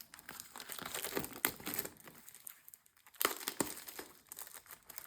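Plastic shrink-wrap on a sealed card display box being torn and crumpled: irregular crinkling and crackling, with two sharp louder snaps a little after three seconds in.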